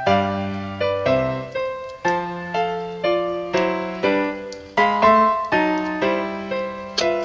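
Background music: a piano playing a slow run of chords, each struck and left to fade before the next.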